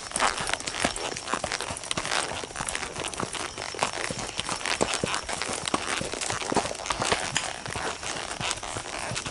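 Horses walking on a dirt forest trail: irregular hoof steps on packed earth and leaf litter, heard as many uneven clicks and crackles.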